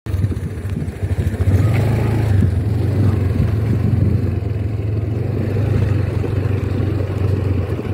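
Motorcycle engine running steadily as the bike rides along a dirt track, a steady low drone that gets a little louder about a second and a half in.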